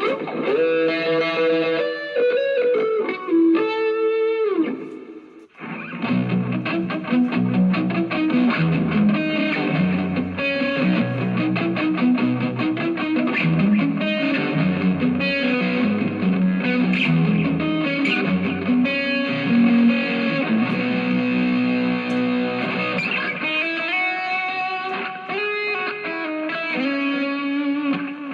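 Distorted electric guitar from an Epiphone SG Special, played through a Zoom G1Four multi-effects pedal and a Vox MV50AC amp into a DIY speaker cab. It opens with single-note lead lines, bends and a falling slide, then breaks briefly. About six seconds in it moves to dense, heavier low riffing, and it returns to single-note lines near the end.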